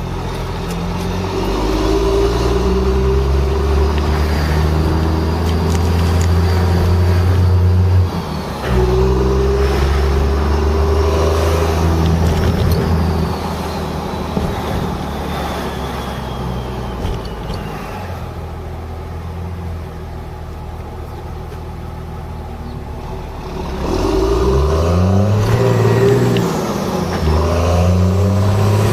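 Cummins diesel engine of a Dodge Ram pickup with a six-speed manual, pulling hard under acceleration. It breaks off briefly about eight seconds in, as with a gear change, then comes back. It runs quieter through the middle, and near the end it revs up with a rising pitch and holds loud again.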